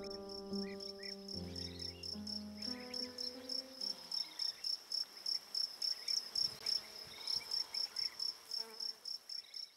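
A cricket chirping in a steady, even rhythm of about four to five high chirps a second. Piano music fades out under it over the first few seconds.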